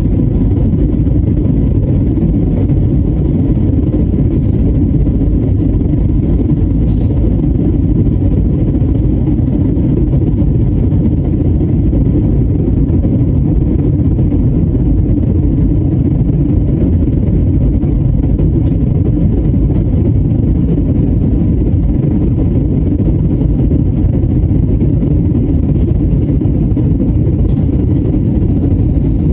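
Airliner cabin noise in flight: a steady low drone of jet engines and airflow heard from inside the passenger cabin.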